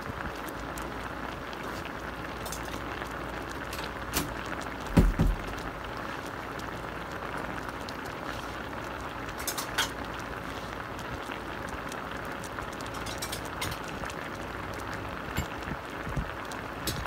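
Chicken adobo in dark sauce boiling in a stainless steel pot: a steady bubbling with scattered sharp pops. A single low thump about five seconds in is the loudest sound.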